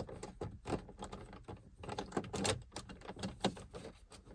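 Irregular light clicks and taps of a hand nut driver with a 7 mm socket backing a bolt out of the dashboard beneath the raised dash pad.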